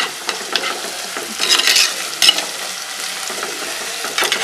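Sliced shallots, green chillies, ginger and garlic sizzling in coconut oil in a clay pot as a spoon stirs them: a steady sizzle with a few short scrapes of the spoon against the pot.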